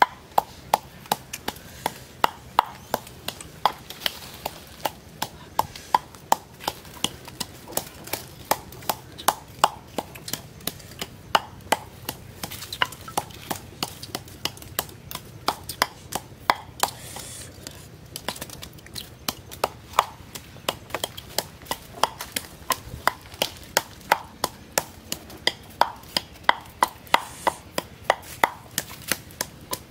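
Wooden pestle pounding in a clay mortar: a steady run of short, sharp knocks, about two or three a second, with a brief pause about two-thirds of the way through.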